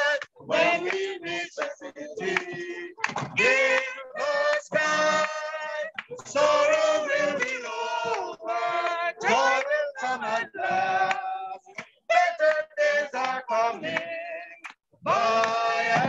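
A small group of men and women singing a gospel chorus unaccompanied, in phrases with short breaks between them.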